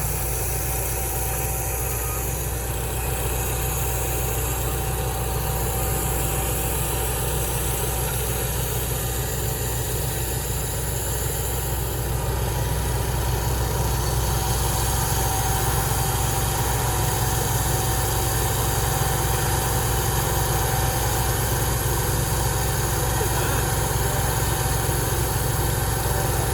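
An engine running steadily at an even speed, growing a little louder about halfway through.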